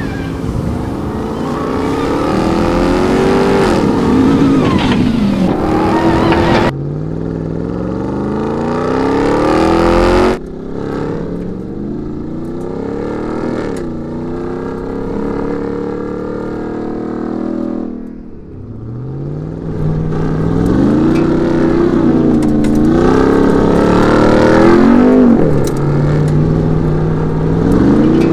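Ram 1500 TRX pickup's supercharged V8 revving hard under acceleration. Its pitch climbs and then drops back at each upshift, over and over, with abrupt cuts about 7 and 10 seconds in.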